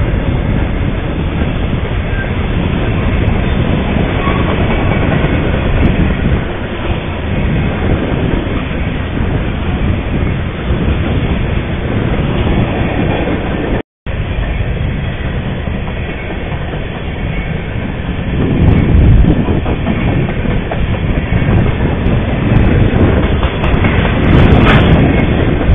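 New England Central Railroad freight train cars rolling past close by, their wheels running steadily on the rails. The sound drops out for an instant about 14 seconds in, then the passing cars carry on.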